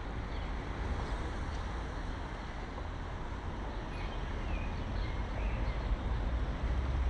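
Busy street ambience: steady traffic noise with a strong low rumble, and a few faint short chirps above it.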